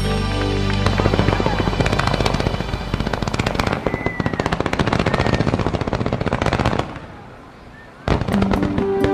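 Fireworks display going off in a dense barrage of rapid crackling bangs, many a second, which drops away about seven seconds in. Music comes back in near the end.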